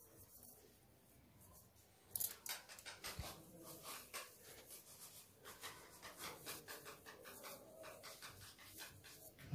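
Faint rubbing and scraping of a steel-wool displacer piston sliding back and forth inside a tin-can cylinder, loose enough to move freely. It starts about two seconds in as a quick run of soft strokes.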